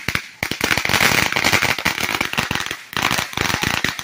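Consumer firework crackling in a fast, dense string of sharp pops, with a short break about a third of a second in and another near three seconds.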